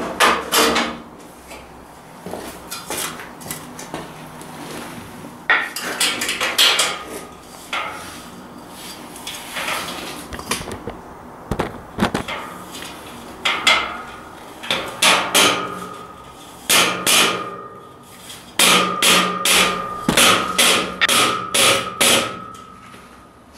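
Rubber mallet knocking the steel beam of a boltless metal shelving unit into the slots of the upright, in several bursts of quick strikes. The steel frame rings after the blows near the end.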